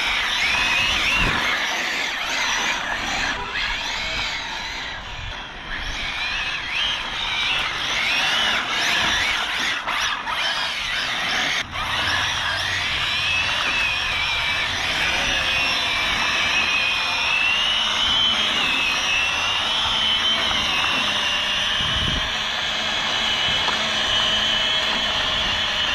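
Arrma Felony 1/7-scale brushless electric RC car running hard on asphalt: a high motor whine that rises and falls with the throttle, over tyre and road noise.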